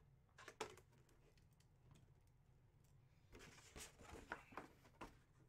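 Near silence, with a few faint rustles of a large rolled-up paper photo print being handled, about half a second in and again between about three and five seconds.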